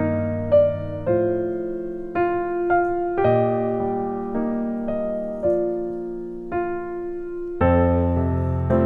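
Background piano music: slow single notes and chords, each struck and then fading, with a fuller, deeper chord near the end.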